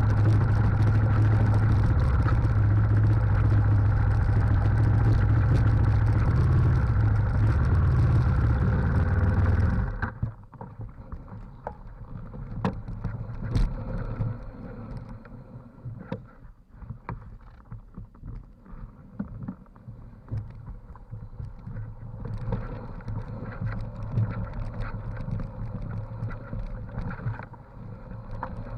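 Trail motorcycle engine running steadily for about ten seconds, then cutting out suddenly. After that, a much quieter stretch of scattered clicks and knocks as the bike rolls on without its engine over a stony, muddy track.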